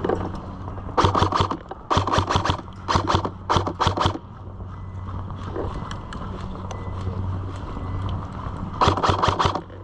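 Airsoft guns firing short bursts of rapid fire: four bursts in the first four seconds and one more near the end, each a quick string of sharp snaps.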